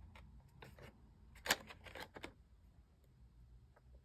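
Small cardboard box of bamboo drinking straws being handled and turned over in the hands: a few light clicks and taps, the loudest about a second and a half in, with a cluster just after.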